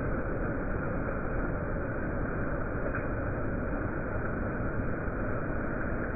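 Steady rain falling, an even hiss that holds at one level without a break.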